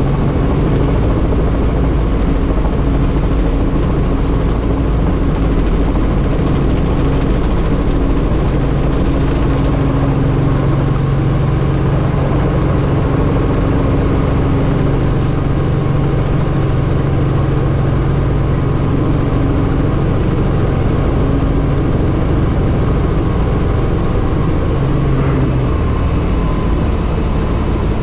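Helicopter running with a loud, steady low drone of engine and rotor.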